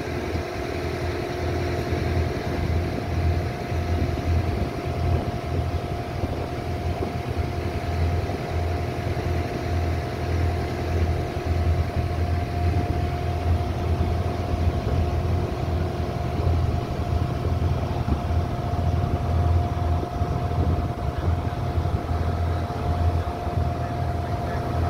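Small wooden ferry boat's engine running steadily underway: a low, pulsing drone with a constant higher hum over it.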